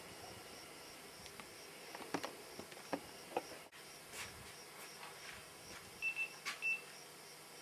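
Faint steady hiss of a Panasonic camcorder's microphone on a quiet night, with a faint fast high pulsing throughout. A few soft handling clicks come in the middle, and two short high beeps come about six seconds in.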